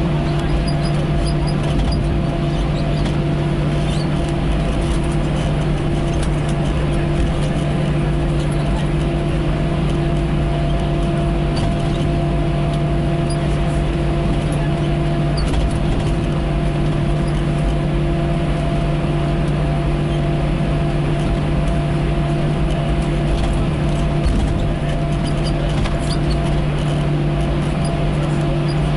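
Steady cabin noise of an Airbus A321 taxiing, heard inside the cabin: the engines' idle hum with a few constant low tones over a broad rush of air.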